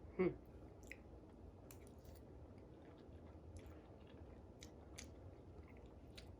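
Faint chewing and small wet mouth clicks of someone eating noodles with shrimp and sausage. Right at the start there is a short, louder vocal sound that falls in pitch.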